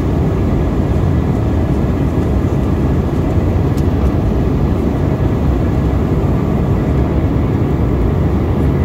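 Steady cabin noise inside a jet airliner, the engines and rushing air making an even low hum with no changes, as the plane begins its approach.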